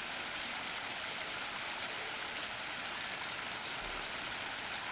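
Small garden waterfall spilling over rocks into a pond: a steady rush of splashing water.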